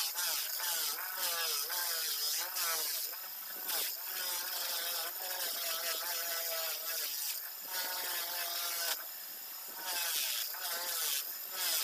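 A singing voice with a wavering, melodic pitch, heard over a steady high hiss.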